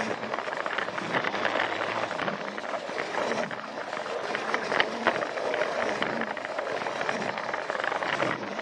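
Battery-powered Plarail toy train running along plastic track: its small motor and gearbox whir under a steady, dense clicking rattle from the wheels on the track.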